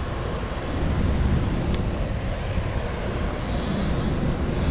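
A steady low rumbling noise, dense and without any clear rhythm or tone.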